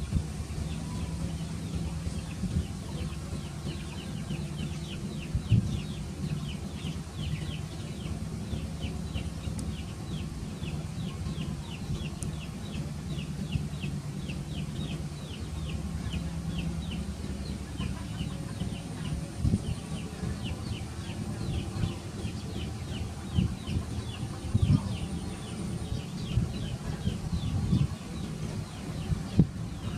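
Rapid series of short, high, falling chirps from an animal, several a second, fading out about two-thirds of the way through, over a steady low hum with a few thumps.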